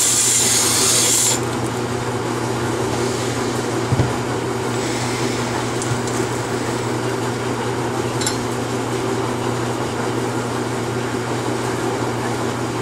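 A cordless drill spins a cylinder hone inside a motorcycle cylinder bore and stops about a second in. A steady low hum carries on underneath, with one knock at about four seconds and faint rubbing as the bore is wiped.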